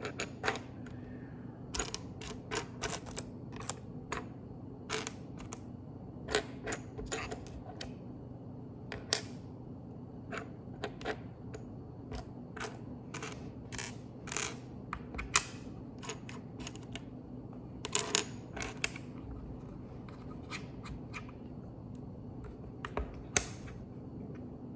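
Lego bricks clicking and rattling as pieces are picked out and snapped together, many short sharp clicks at an uneven pace, a few louder ones near the end, over a steady low hum.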